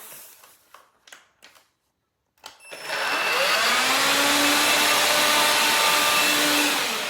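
A few handling clicks, then about two and a half seconds in the Electrolux Ergorapido cordless stick vacuum's motor starts, spins up with a rising whine and runs steadily. Near the end it spins down and cuts out on its own, although it has just been charged.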